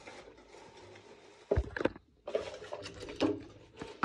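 Clicks and knocks from handling the animatronic's metal frame and plastic parts, with a cluster of sharper knocks about a second and a half in and a faint low hum behind.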